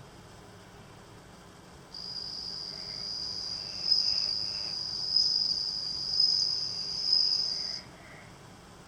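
Male Japanese bell cricket (suzumushi) singing: a high, ringing trill that starts about two seconds in, swells roughly once a second, and stops abruptly near the end.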